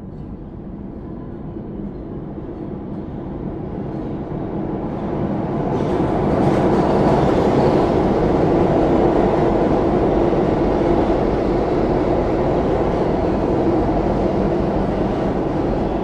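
New York City #7 subway train running, heard from inside the car: a steady rumble that builds over the first several seconds and grows a hissing top from about six seconds in as the train picks up speed.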